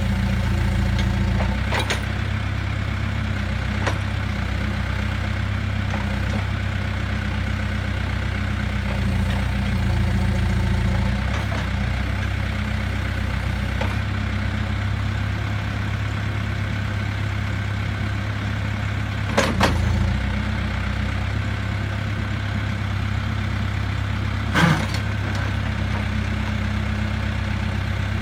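Case 580N loader backhoe's diesel engine running steadily at idle, its note swelling slightly twice. A couple of sharp knocks come through about two-thirds of the way in and again near the end.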